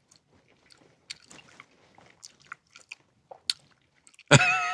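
Close mouth sounds of someone chewing food: faint, irregular wet clicks and smacks. Near the end a loud held pitched sound starts abruptly.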